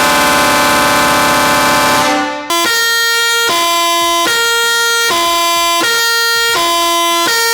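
A pair of 19-inch and 22-inch Hadley twin air horns blasting together as a loud two-tone chord, which dies away about two seconds in. Then a Basuri musical air horn plays a tune of clear held notes, each lasting under a second with short breaks between them.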